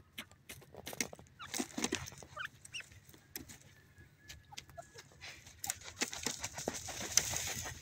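Grey francolin giving soft, short clucking notes close up, among scattered sharp clicks. A rustling hiss builds over the last two seconds.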